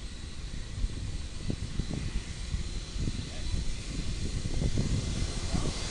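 Jet airliner's engines running at taxi power: a steady whine and hiss that grows a little louder near the end, with gusty wind rumbling on the microphone.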